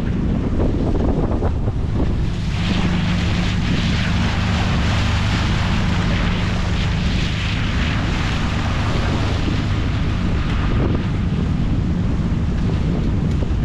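A 1957 Cadillac boat under way: its engine drones steadily beneath heavy wind buffeting on the microphone and the rush of water along the hull. The rushing grows stronger about two and a half seconds in.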